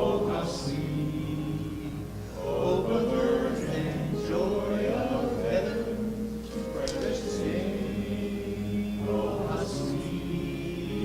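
Congregation singing a hymn together, in long held notes with the words' sibilants coming through.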